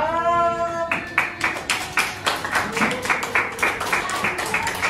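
A group of people clapping in a steady rhythm, about three to four claps a second, starting about a second in after one long held vocal note.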